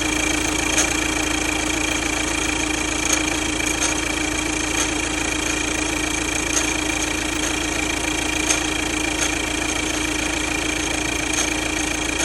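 Audi A5 2.0 TDI four-cylinder diesel engine idling steadily with a failed turbocharger. A steady high whine sits over the engine's running note, with occasional faint ticks.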